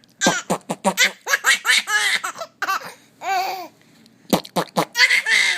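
Baby laughing in a run of short, quick bursts, then a few longer breathy laughs.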